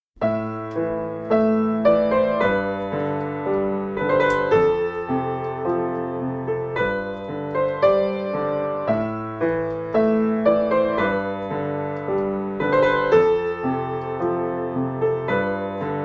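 Piano music: a gentle melody of struck, decaying notes over low held bass notes, with the same phrase coming round again.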